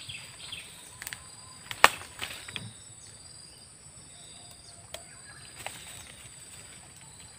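A steady high-pitched insect drone, with a few sharp clicks and crackles as bamboo stems and leaves are pushed aside by hand. The loudest crack comes just under two seconds in.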